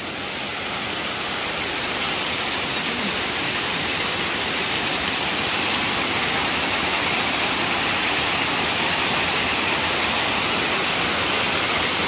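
Waterfall: water pouring down over rocks in a steady, full rushing noise, growing slightly louder in the first couple of seconds.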